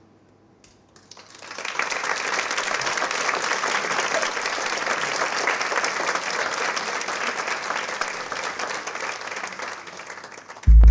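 Theatre audience applauding: a dense clapping that swells in about a second in and holds, easing slightly near the end. A loud low boom cuts in at the very end.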